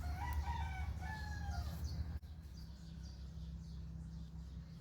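A rooster crowing once, a call of nearly two seconds, over a low steady rumble; the sound cuts off suddenly a little over two seconds in, leaving only the rumble.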